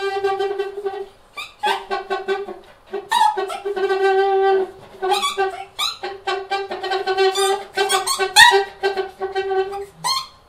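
Free-improvised saxophone playing with extended techniques. A pulsing, held tone stays on one pitch, broken by short pauses, while sharp squeaks and gliding squeals cut in above it several times.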